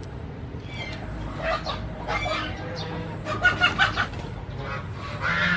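Chickens clucking, several short runs of calls, with a quick, loudest run about three and a half seconds in.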